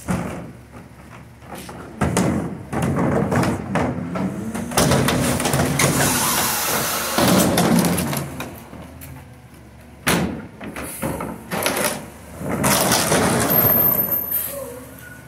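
A plastic wheeled garbage cart being emptied into the hopper of a McNeilus rear-loader garbage truck: a run of knocks and bangs of the cart against the truck, with a rush of trash sliding out, over the truck's idling engine. More bangs come about ten seconds in and again a couple of seconds later.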